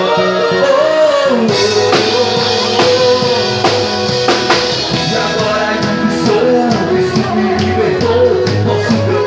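A band playing a rock song: drum kit, bass and guitar under a wavering melodic lead line, with cymbals and drum hits coming in fuller about a second and a half in.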